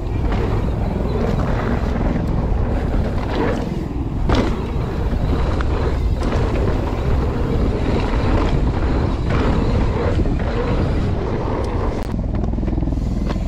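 Wind buffeting the camera microphone while a mountain bike rolls along a dirt trail. The rush is steady, with a few short knocks and rattles, the clearest about four seconds in.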